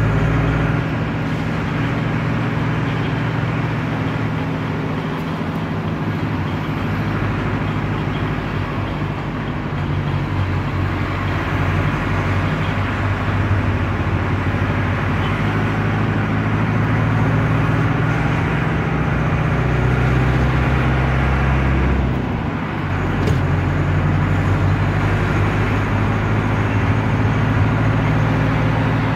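Air-cooled Deutz F4L912 four-cylinder diesel of an Otokar M-2000 minibus running steadily under way, heard from inside the cab. About 22 seconds in the engine note dips briefly and then picks up again.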